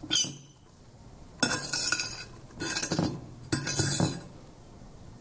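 Metal cutlery scraping and clinking against a ceramic plate while cutting a pancake, in four short bouts.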